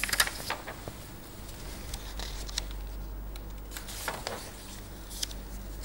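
Sheets of paper being handled and moved on a desk: a scattering of soft rustles and light taps, over a steady low hum.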